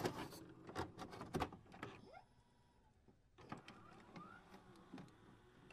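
Faint glitch-style sound effect: scattered sharp digital clicks, a near-quiet gap a little past halfway, then more clicks and a short rising electronic chirp.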